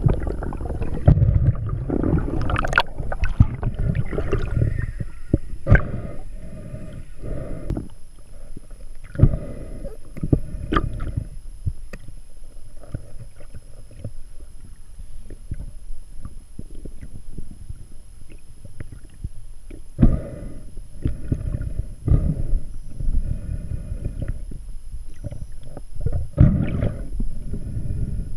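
Underwater noise heard through a waterproof camera housing: uneven rushing and gurgling of water with many sharp clicks and knocks as the speargun and its line are handled. It is loudest at the start and again near the end.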